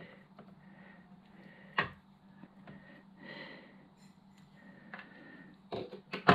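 Small clicks and knocks from hands and a small blade working a red battery cable, cutting back its insulation, over a faint steady hum. There is one sharp click about two seconds in and a quick cluster of louder knocks near the end.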